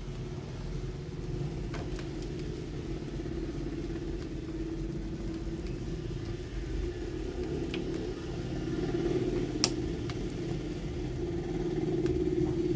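Steady hum from a switched-on SHGF SVR-1500VA servo-motor automatic voltage regulator, growing a little louder about eight or nine seconds in. A few light clicks and one sharper click come as multimeter probes are pushed into its 220 V outlet.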